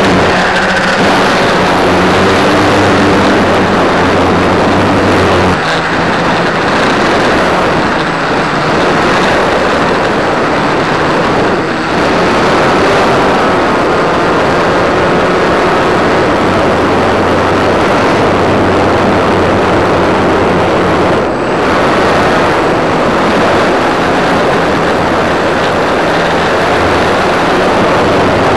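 Model airplane's motor and propeller running in flight, heard from a camera mounted on the plane, with a loud steady rush of wind and prop wash over the microphone. A low propeller hum comes and goes with the throttle.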